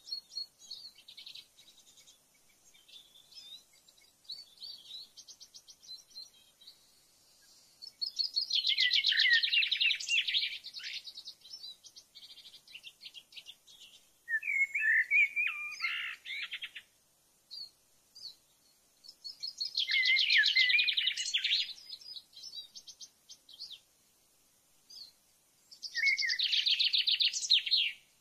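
A songbird singing: four loud song phrases of rapid high notes, each about two to three seconds long and several seconds apart, with softer chirps in between.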